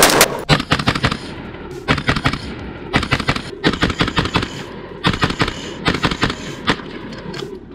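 Palmetto State Armory AR-15 pistol fired in quick strings of semi-automatic shots, several fast shots to a string with short pauses between, about eight strings in all.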